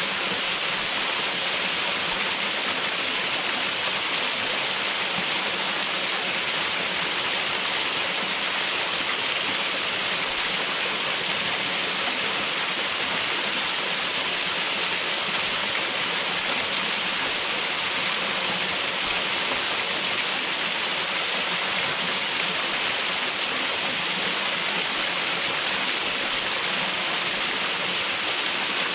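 Waterfall running, a steady, unbroken rush of falling water.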